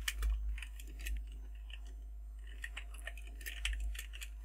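Computer keyboard keys tapped in short, irregular runs of clicks, with a pause in the middle and a quicker run near the end, as spaces are typed to align code.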